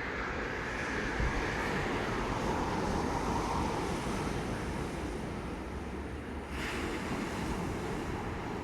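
Sea waves washing on the shore in a steady rush, with wind buffeting the microphone.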